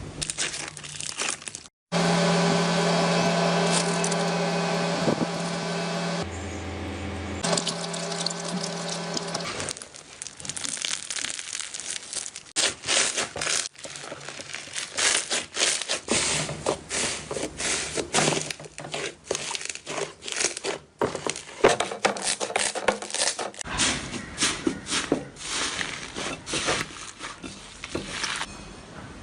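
Slime being squeezed and poked by hand, making rapid sticky clicks, crackles and pops. A steady humming drone plays for several seconds before the crackling takes over.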